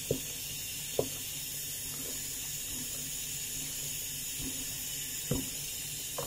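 A dal masher (ghotni) working through thick, simmering lentil paste in a pot, giving a few short wet plops over a steady hiss from the stove.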